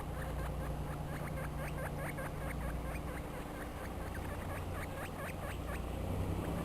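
Guinea pigs squeaking in many short, rapid squeaks, several a second, over a steady low hum.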